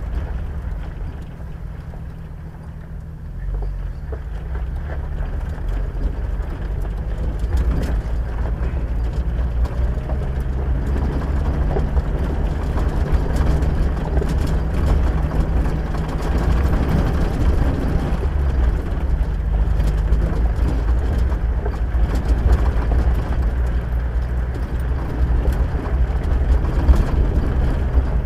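A vehicle driving on a dirt road: steady engine hum with tyre and road rumble. It quiets briefly about a second in, then grows louder from about four seconds in and holds fairly even.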